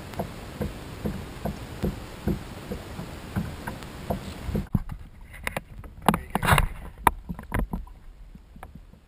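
Small waves lapping against a plastic kayak hull in an even rhythm, a soft knock a bit more than twice a second. About halfway through this gives way to close handling clicks and knocks and water splashing as a hand puts a caught fish back into shallow water.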